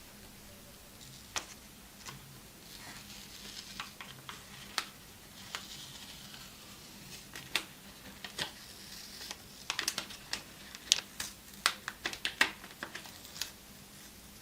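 Handling of packaging and a phone during unboxing: scattered light clicks and taps with patches of soft rustling. The taps come thicker and sharper in the last few seconds.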